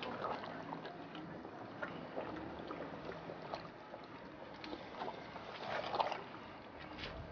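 Wooden spoon stirring a thick tomato and meat stew in an aluminium pot: soft sloshing and scraping with scattered light knocks against the pot, a little louder about six seconds in.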